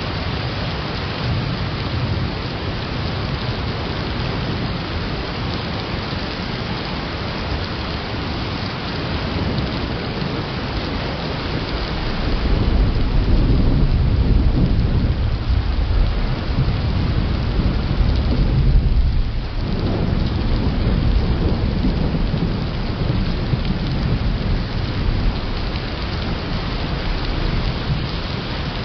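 Steady rain hiss, with a long, deep rumble of thunder that swells about twelve seconds in and rolls on for around eight seconds before easing back.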